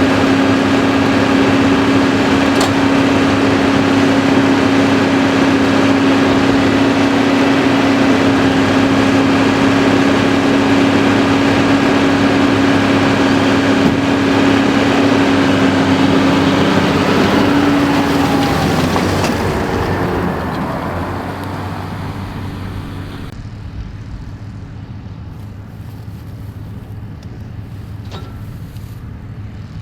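New Holland TM155 tractor's six-cylinder diesel running under load while pulling a Claas Variant 385 round baler, a steady drone of engine and baler machinery with a steady whine in it. About two-thirds of the way through, the sound fades to a quieter drone.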